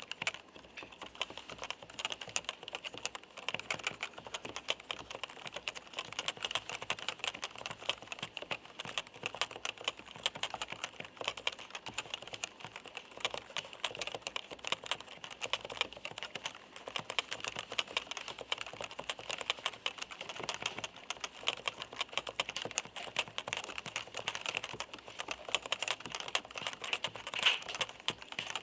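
Typing on a Topre FD-0100, a professional-use electrostatic capacitive (Topre) keyboard: a steady, fast run of light, clacking keystrokes, with one louder keystroke near the end.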